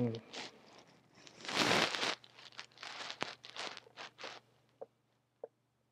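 Irregular rustling and breath-like noises close to the microphone, the loudest near two seconds in, then a few short faint clicks near the end. A faint steady low hum sits beneath from about two seconds on.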